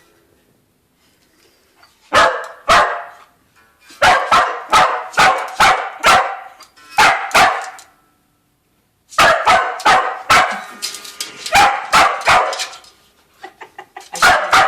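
Dog barking, loud and excited, in rapid runs of sharp barks that start about two seconds in, with brief pauses between the runs.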